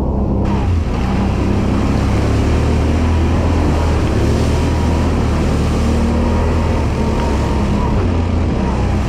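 Quad bike (ATV) engine running steadily while riding, its pitch holding fairly even with small rises and falls.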